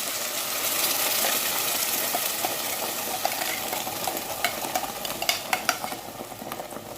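Ground tomato and onion paste sizzling in hot oil in a kadai, with a spoon clicking against the pan from about four seconds in as it is stirred.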